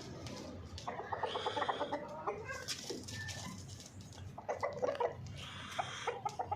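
Domestic hens clucking in two runs of quick, short clucks.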